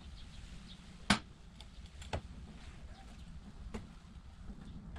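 Metal parts of a magnetic welding holder, a steel plate and ring magnet, clicking as they are handled and set down: three short clicks, the loudest about a second in, over a low steady background noise.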